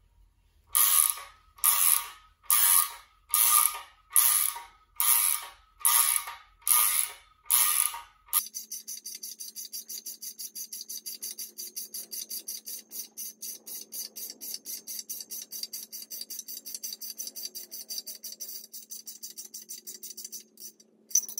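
Ratchet wrench clicking as it turns the nut on a threaded-rod puller, drawing a jackshaft bushing into the front bore of a Jaguar V12 block. It starts with slow, loud strokes about one a second, and from about eight seconds in changes to a faster, quieter, even run of clicks.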